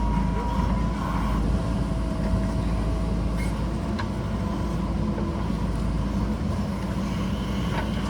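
JCB backhoe loader's diesel engine running steadily under working load, with a few brief sharp knocks.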